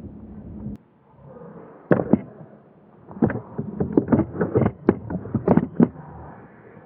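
Airsoft gunfire: a pair of sharp snapping cracks about two seconds in, then a fast, irregular run of a dozen or more cracks and clicks for about three seconds, as guns are fired and BBs strike around the field.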